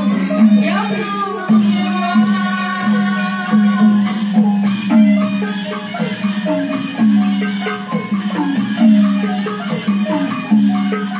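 Traditional Burmese music accompanying a marionette dance: a bright xylophone-like melody over a steady low beat, about three beats every two seconds.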